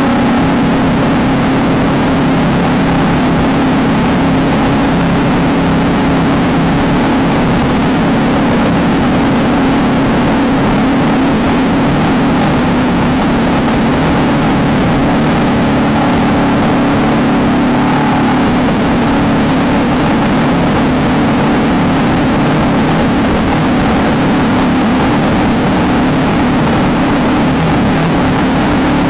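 Desert off-road race car's engine running at high load, its pitch holding nearly steady throughout, with a constant haze of driving noise over it.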